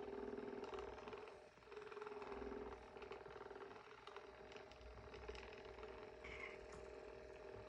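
Handheld percussive massage gun running with a steady, faint buzz as it works on a cat's back, the buzz dipping briefly about a second and a half in.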